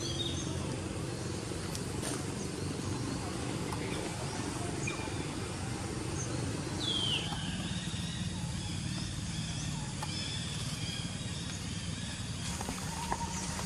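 Steady outdoor background rumble with a few faint high chirps, and one descending high-pitched call about seven seconds in.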